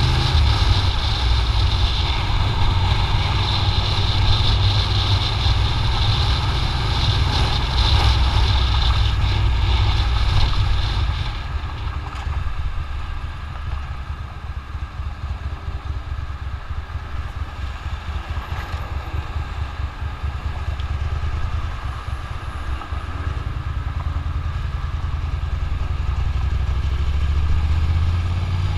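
Motorcycle engine running under way with wind rush, louder for roughly the first eleven seconds, then easing to a quieter, lower hum as the bike slows, and building up again near the end.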